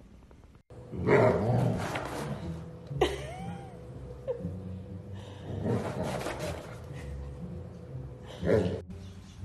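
A dog scrabbling and nosing under a rug on a wooden floor: rough rubbing and scuffling in several bursts, the loudest about a second in.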